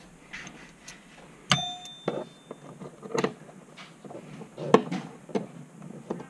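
Metal clinking as a wrench and bolts work against a steel harness bar while seat belt receivers are bolted onto it. A sharp ringing clang comes about a second and a half in, followed by several shorter knocks.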